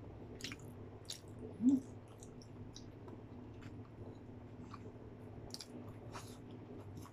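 Close-up mouth sounds of someone eating fried fish and rice by hand: chewing with scattered soft wet clicks and lip smacks. A short hummed "mm" about a second and a half in, over a steady low hum.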